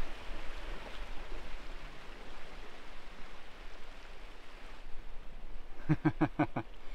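Steady rushing of wind and sea surf, which eases off about five seconds in; near the end comes a brief wordless voice sound.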